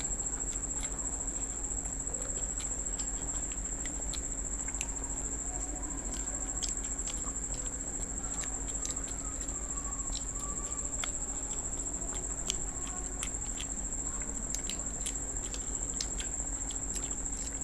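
People chewing pizza: irregular soft clicks and smacks of eating, over a steady high-pitched whine and a low hum.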